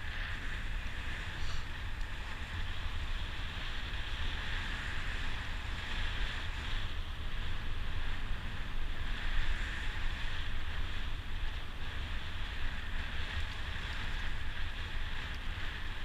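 Wind buffeting the microphone of a camera riding on a bicycle at speed, a dense low rumble with a steady higher hiss above it that swells and eases.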